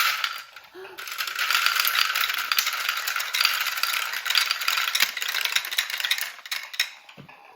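Plastic marbles clattering down a VTech Marble Rush plastic marble-run track: a short clatter, then a dense, continuous rattle of many small clicks that stops shortly before the end.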